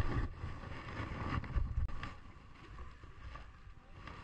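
Wind buffeting the microphone aboard a small boat at sea, with a low rumble and gusty surges. About two seconds in it drops abruptly to a quieter, even hiss with a few small knocks.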